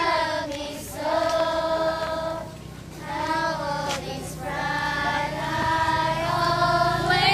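A group of young girls singing together in unison, held notes in phrases with short breaths between them.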